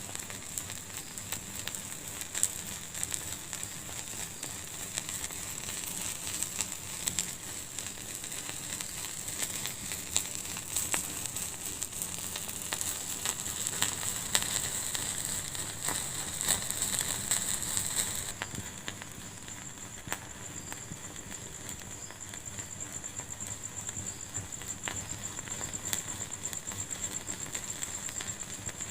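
Fire in a fireplace crackling and popping irregularly over a steady high hiss. A little past halfway the hiss thins and the crackling gets somewhat quieter.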